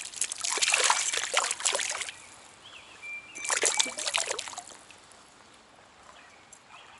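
Water splashing in two bursts, the first about two seconds long and the second shorter, about a second and a half later: a small brown trout thrashing at the surface on the line as it is brought in.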